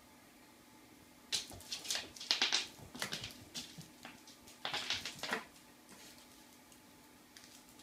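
Egyptian Mau kitten batting and chasing a piece of candy across a wooden floor: quick clattering, skittering and rustling in two flurries, starting about a second in and stopping about five and a half seconds in.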